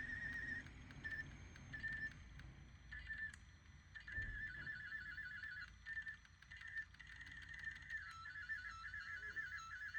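Marantz CD-65 II SE CD player squealing while playing a burned CD-R, a high warbling whine that happens only with burned discs, not pressed CDs. It cuts in and out in short blips, holds for a second or so in the middle, and runs on without a break from about eight seconds in.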